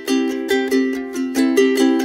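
Background music: a plucked-string instrumental with quick, evenly struck notes and a strum about every half second.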